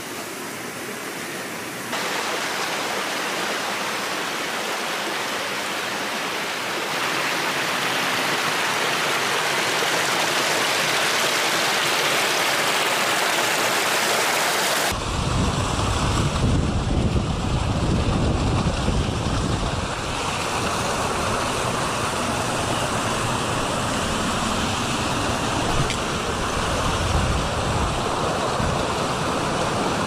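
Steady rushing of a mountain river. About halfway through it changes abruptly to a rougher sound with a heavy, gusty low rumble of wind buffeting the microphone.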